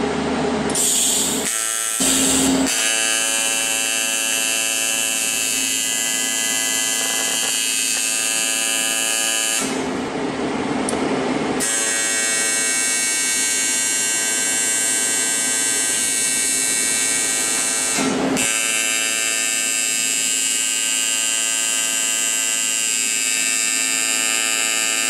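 AC TIG welding arc on aluminum plate, a steady electric buzz with many even overtones as the arc is held on a small puddle from an inverter TIG machine under foot-pedal control. It breaks off briefly about two seconds in, again around ten seconds and once more around eighteen seconds, then buzzes on.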